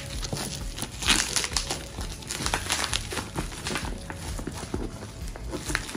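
Plastic bubble wrap crinkling and crackling as hands pull and tear at taped-up packaging, in irregular rustles with a louder crackle about a second in.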